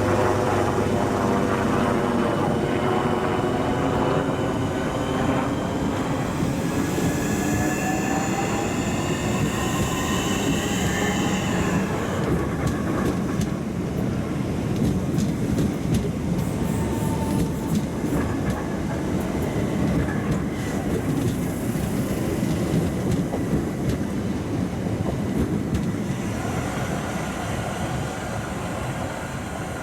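Southeastern electric multiple-unit train moving through the station. For about the first twelve seconds a whine shifts in pitch over the rumble of the wheels. After that comes a steady rolling rumble with scattered clicks from the wheels on the rails.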